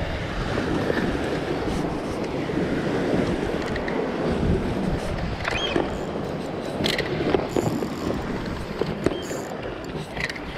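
Wind buffeting the microphone over surf washing against shoreline rocks, a steady rushing noise with a few light clicks in the second half.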